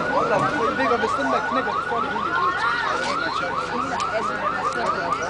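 Car alarm sounding: a rapid, steady run of rising whoops, about five a second.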